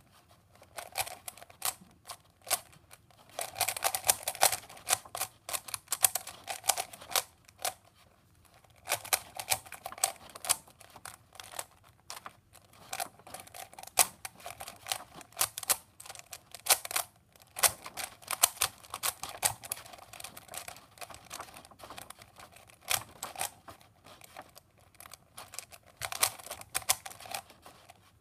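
Rubik's cube being turned fast by hand: rapid runs of plastic clicking and clacking as the layers twist, broken by short pauses.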